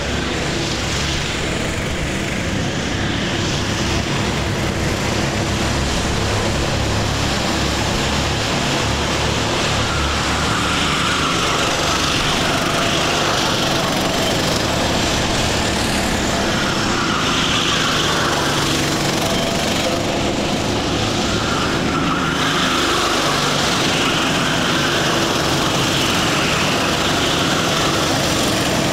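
A pack of Sodi karts racing, several small engines running at once. Their pitch keeps rising and falling as the karts accelerate out of corners and lift off into them.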